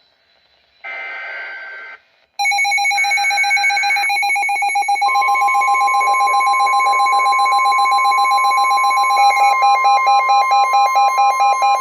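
NOAA Weather Radio warning alert: a short burst of buzzing SAME data tones, then the weather radio's loud alarm beeping starts about two seconds in. About five seconds in, the steady 1050 Hz warning tone joins it, and near the end the beeping changes to a slower on-off pulse. The alert heralds a tornado warning.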